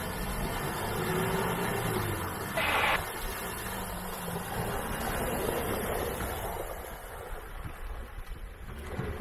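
Compact 4x4 engine running at low speed as the vehicle fords a shallow, rocky river, its tyres splashing through the water, with one short louder splash about three seconds in.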